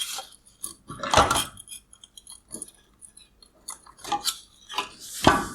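Clicks and clatter of hard plastic parts from a 2016 Mazda 6 LED headlight being handled as a wire harness clip is worked free. The louder knocks come about a second in and near the end.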